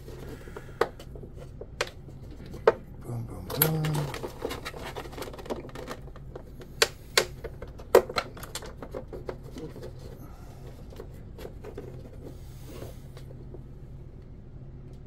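Hands working on small parts of an RC boat's electrics and cooling lines: scattered sharp clicks and taps of plastic and metal parts, with a short louder rustle about four seconds in. The clicks stop near the end, leaving a low steady hum.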